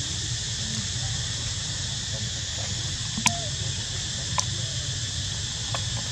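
Steady high-pitched insect drone over a low rumble, broken by a few short sharp clicks, the loudest about three seconds in.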